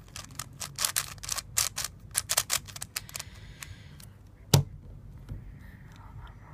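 Cheap plastic 5x5 puzzle cube being turned by hand, a quick run of clicking, clacking layer turns for about three seconds, with the cube turning freely. About four and a half seconds in, a single knock as the cube is set down on the wooden table.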